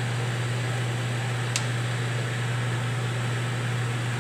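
A steady low mechanical hum with an even hiss, and a single brief click about one and a half seconds in.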